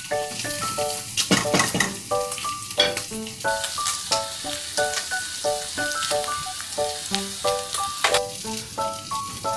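Food sizzling and crackling as it fries in a pan. Light background music of short plucked notes plays over it.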